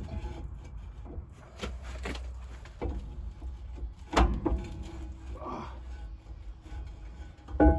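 Heavy truck drum-brake shoes being handled and worked off the brake assembly: a series of metal clunks and scrapes, the loudest about four seconds in and another near the end.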